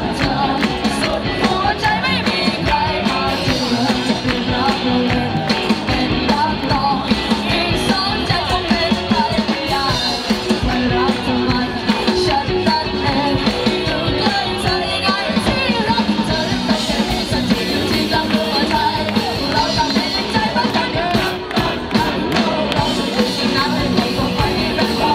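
Live rock band playing through a PA: a boy's singing voice over electric bass and drums, recorded from the stage.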